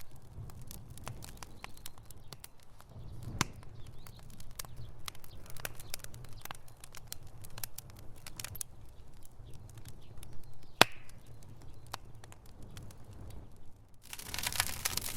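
Wood fire crackling in a fireplace: scattered sharp pops and snaps over a low rumble of the flames, with one loud pop about eleven seconds in. Near the end the crackling turns denser and louder.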